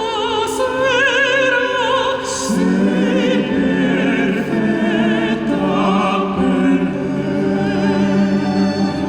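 Operatic classical-crossover singing with wide vibrato over an orchestra, with sustained low strings underneath.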